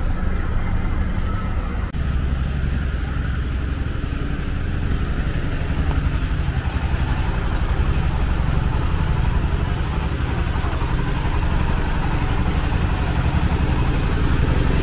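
An engine idling: a steady low rumble with a fine even pulse, shifting slightly about two seconds in.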